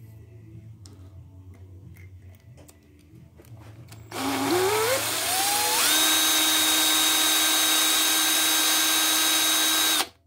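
Cordless drill running a small 3/32-inch pilot bit into the metal cylinder block deck of a two-cylinder air compressor. About four seconds in, the drill whine climbs in pitch as it spins up, then holds steady for about four seconds and stops abruptly near the end. Before it there are only faint handling clicks.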